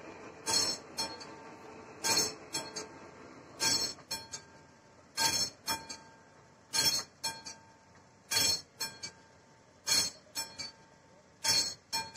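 Classic mechanical bell of an AŽD 71 railway level crossing ringing its warning for an approaching train. It rings in repeated groups, one loud clang followed by two or three lighter strokes, about every one and a half seconds.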